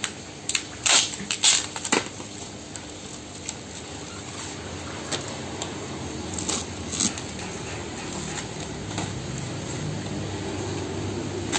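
Box cutter slitting packing tape and plastic wrap on a bundle of boards, with crinkling plastic and several sharp clicks, most of them in the first two seconds and a few more scattered later.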